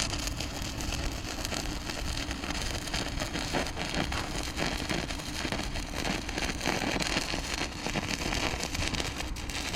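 Welding arc crackling steadily, a dense run of fine sputtering clicks.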